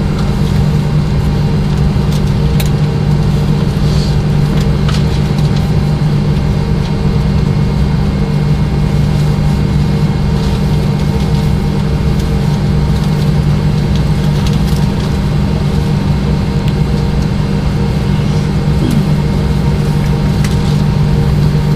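Steady cabin drone inside a McDonnell Douglas MD-90 standing on the taxiway, its rear-mounted IAE V2500 turbofans idling, with a constant low hum and a few faint ticks.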